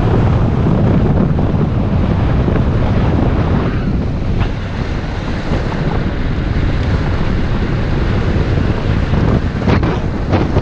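Wind rushing over the microphone of a camera mounted on a moving road bike, a loud steady rumble that eases slightly about four seconds in. A few sharp knocks come near the end.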